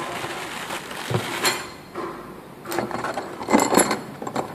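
Used engine pistons and a connecting rod clinking and knocking together as they are handled in a cardboard parts box: a few separate clinks, with a quick cluster of them near the end.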